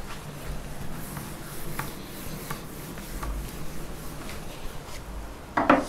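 A felt whiteboard duster rubbing across a whiteboard in repeated light strokes as the board is wiped clean. Near the end there is a short, louder knock.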